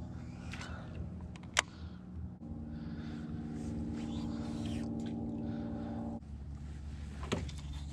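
Boat motor humming steadily. A higher, fuller hum cuts in about two and a half seconds in and drops back out abruptly near six seconds, as the motor is throttled up and back. A couple of sharp clicks sound, one early and one near the end.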